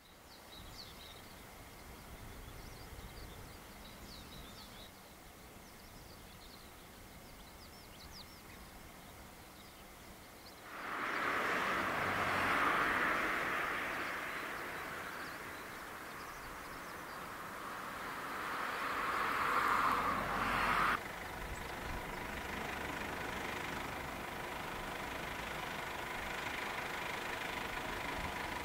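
Jet engine noise of a Boeing 767-300ER airliner flying at a distance: a rushing noise comes in suddenly about eleven seconds in, swells twice and breaks off at about 21 seconds, then continues as a steadier, quieter hum with a faint whine. A few birds chirp faintly in the first seconds.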